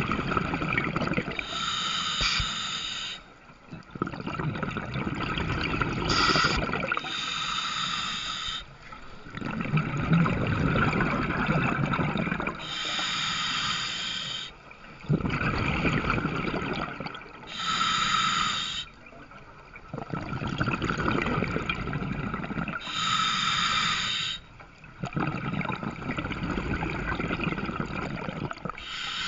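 Scuba diver breathing through a regulator: about five slow breaths, each a hissing inhale through the demand valve followed by a longer low rumble of exhaled bubbles.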